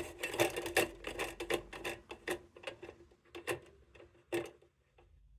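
Steel parts of a 1928 Dietz Monarch hot blast lantern clicking and clinking as they are handled and adjusted: irregular light taps with a slight metallic ring, thinning out toward the end.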